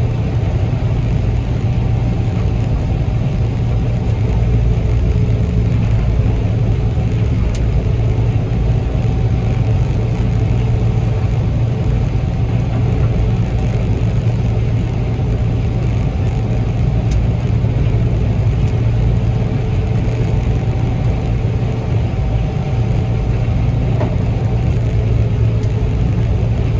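Gleaner combine running steadily: a loud, unchanging low drone of engine and machinery with a faint steady whine above it.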